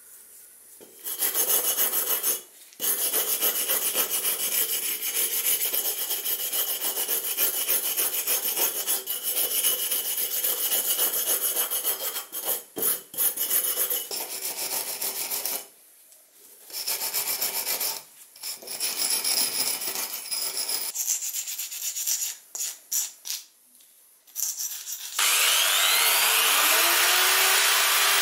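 Hand wire brush scraping rust and old paint off the steel body of an old hand oiler, in long runs and then shorter strokes with brief pauses. About 25 seconds in, a drill fitted with a wire wheel spins up with a rising whine and runs steadily against the metal.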